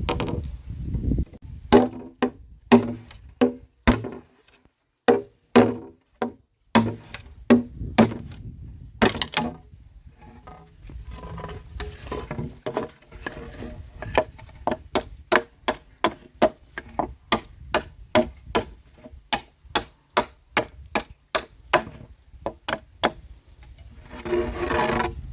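Repeated strikes on bamboo, each a sharp knock with a brief hollow ring, about two a second at their quickest, with short pauses.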